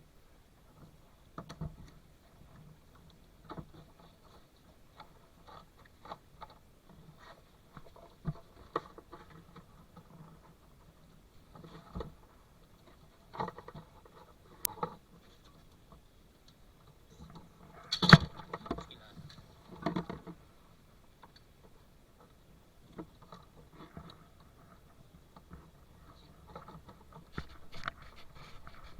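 Scattered light clicks, taps and scrapes of parts and hand tools being handled during work on an automotive fuel pump assembly, with one louder clatter about two-thirds of the way through.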